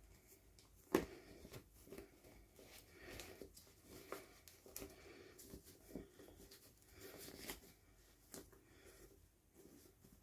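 Faint handling of toy packaging: soft rustles and small clicks, with one sharper click about a second in.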